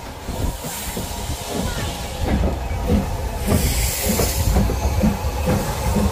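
Somerset & Dorset Joint Railway 7F 2-8-0 steam locomotive No. 53809 moving off slowly, its exhaust chuffing in a steady beat about twice a second. Loud bursts of steam hiss come about a second in and again around the middle.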